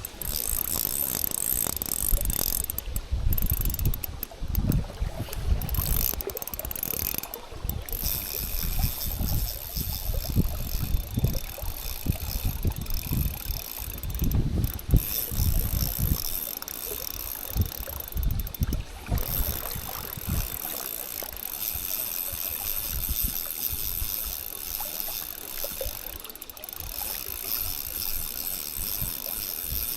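Strong wind buffeting the microphone in gusts that ease off about two-thirds of the way through, over the mechanical clicking and whirring of a fishing reel being worked.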